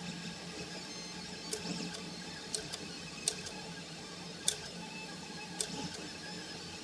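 Delta 3D printer running: a steady motor hum with short rising and falling whirs as the stepper motors move the print head, broken by about six sharp clicks, the loudest about four and a half seconds in.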